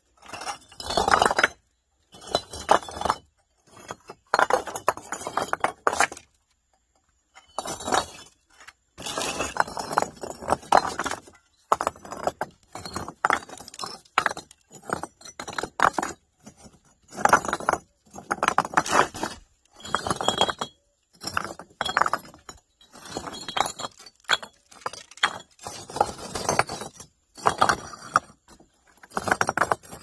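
Rough sledge-split building stones (pedra marroada) clinking and knocking against one another as they are handled, in bursts of quick, sharp, ringing clinks with short pauses between them.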